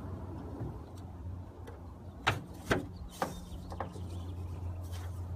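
Plastic push-pin clips being pried out of a hood underliner with a trim clip removal tool: three sharp clicks a little over two seconds in, with a few fainter clicks around them.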